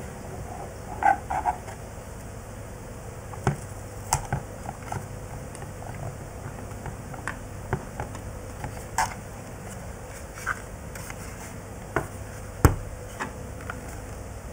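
Hands handling the plastic case of a Walkera Devo 7E RC transmitter while tucking module wiring into its back: scattered small clicks and taps, a cluster about a second in and a sharper knock near the end.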